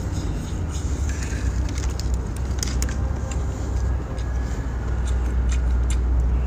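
Eating sounds from a cooked lobster: scattered sharp clicks as meat is bitten and sucked from the shell, over a steady low rumble.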